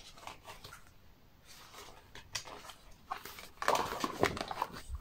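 Paper page of a spiral-bound desk calendar being turned over its wire binding: a few light ticks and soft rustles, then a louder rustle of the page flipping over about three and a half seconds in.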